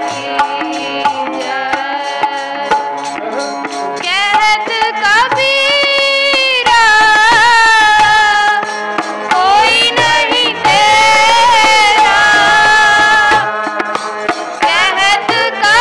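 Sikh kirtan: a harmonium holds steady chords under frequent tabla strokes, and from about four seconds in a voice sings a shabad over them with long, gliding held notes.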